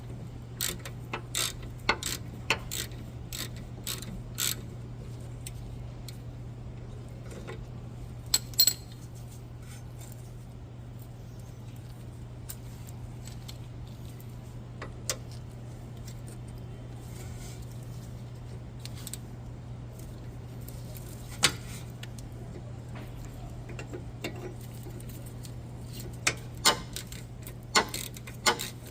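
Socket ratchet clicking in short runs as a 17 mm bolt on a rear brake assembly is worked loose, with longer gaps between runs, over a steady low hum.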